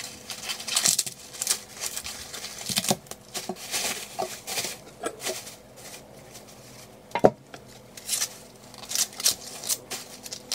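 Fresh corn cobs being husked by hand: irregular dry rustling and tearing as the leafy husks are pulled off, with plastic-bag crinkling. A single sharp knock about seven seconds in.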